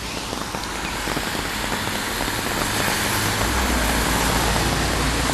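A motor vehicle passing on a wet road: tyre hiss over steady rain, with a low engine rumble that swells about three seconds in.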